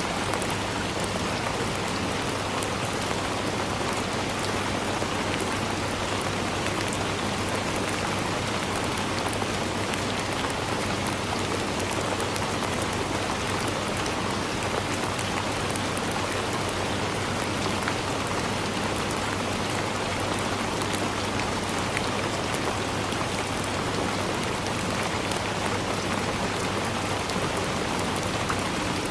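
Steady rain falling on forest leaves, a dense even patter of drops with no let-up.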